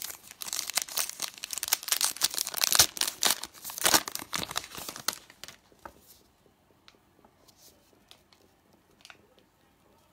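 Foil wrapper of a football trading-card pack being torn open and crinkled by hand for about five seconds. After that come only a few faint clicks as the cards are handled.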